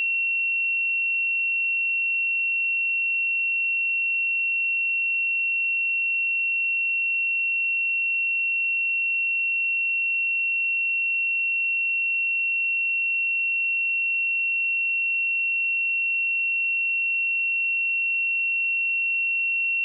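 A steady 2724 Hz sine-wave test tone, one pure high-pitched tone held at an even level throughout.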